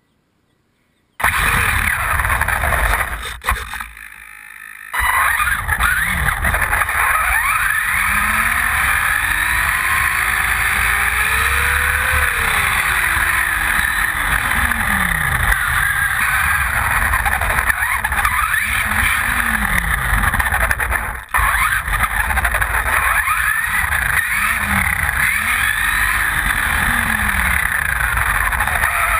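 Hopped-up Losi Mini-T electric RC truck driving on asphalt, heard from on board. Its motor and gears whine, rising and falling in pitch with the throttle, over loud tyre and road noise. The sound starts suddenly about a second in after near silence and has two short lulls.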